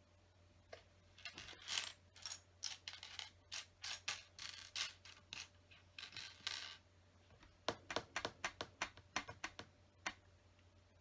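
Small plastic LEGO bricks clicking and clattering as a hand rummages through loose pieces, searching for one. The clatter comes in two busy spells, the second near the end a quicker run of clicks.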